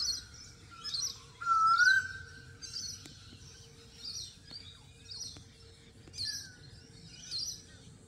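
Wild birds calling in a chorus of repeated high chirps. About a second and a half in, a louder whistled note rises and then holds for about a second.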